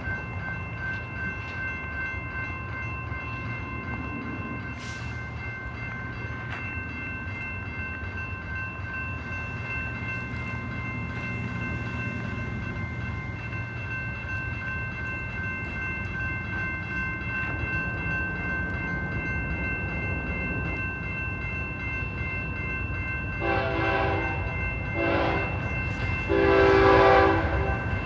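A train running with a steady low rumble, then its locomotive horn sounding three times near the end: a medium blast, a short one, and a long, louder final blast.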